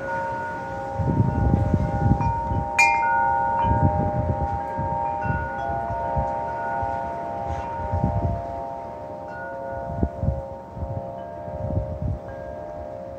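Wind chimes stirred by gusts, several tones ringing and overlapping, with a sharp bright strike about three seconds in. Low rumbling gusts of wind come and go beneath them.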